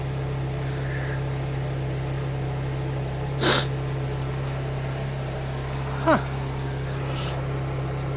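An engine running steadily as a low, even hum, with a short knock about three and a half seconds in and a brief squeak falling in pitch about six seconds in.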